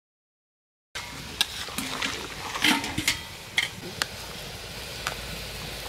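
Flat metal spatula stirring a bubbling curry of potato and taro in a metal pan, scraping and clinking against the pan over a steady simmering hiss. It starts suddenly about a second in, after silence, with half a dozen sharp clinks spread through it.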